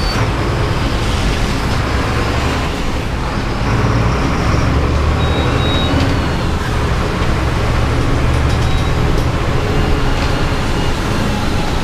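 Mercedes-Benz city bus heard from the driver's seat while driving: a steady engine and drivetrain rumble with tyre noise on the rain-soaked road. A brief high-pitched tone sounds about five seconds in.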